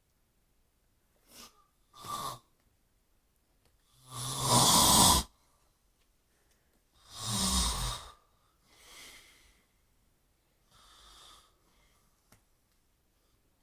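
A sleeping man snoring: about six irregularly spaced snores. The two loudest and longest come about four and seven seconds in, with two softer ones after them.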